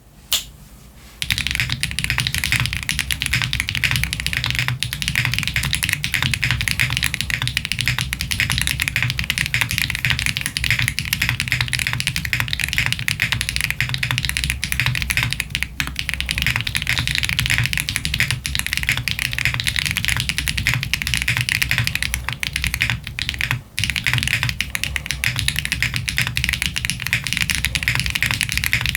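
Fast, continuous typing on a Jris 65 mechanical keyboard with stock Gateron Type R tactile switches and GMK keycaps: a rapid, dense clatter of key presses. It starts about a second in and pauses briefly about three-quarters of the way through.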